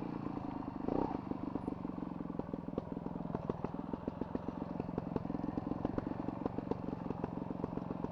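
Trials motorcycle engine running steadily at low speed with a rapid, even beat of firing pulses as the bike is ridden along a dirt trail.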